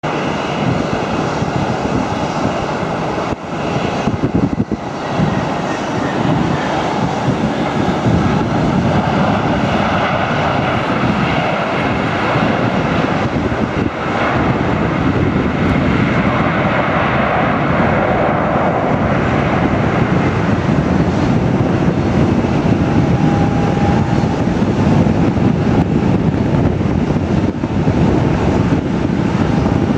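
Airbus A319-114's CFM56-5A jet engines at taxi idle, a steady rushing noise with a faint high whine in the first several seconds, growing a little louder after about eight seconds.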